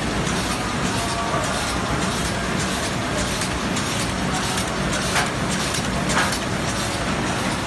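Automatic film laminating machine running: a steady mechanical noise with a rapid, even train of clicks from its moving parts.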